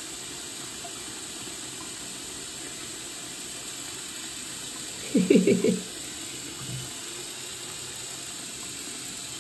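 Bathtub tap running steadily, the stream splashing into the tub and over a kitten. About five seconds in comes one short, low vocal sound.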